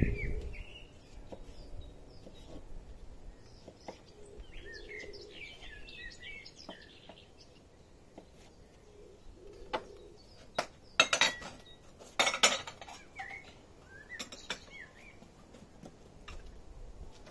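Knife cutting a lemon on a wooden cutting board, with a few sharp clatters and clinks of dishes and utensils, the loudest a little past the middle. Birds chirp in the background.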